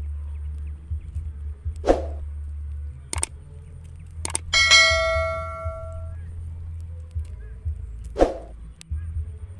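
A click followed by a ringing bell ding that fades over about a second and a half, the sound effect of an on-screen subscribe-button animation. It comes about halfway through, over a steady low rumble, with a few other short clicks and two brief hits.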